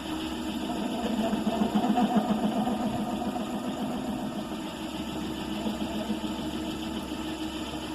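Vintage Myford lathe running on a DC motor under a PWM speed controller, a steady hum. From about a second in, the turning tool's slightly deeper dry cut, made without cutting fluid, adds a louder fluttering noise that fades again after about five seconds.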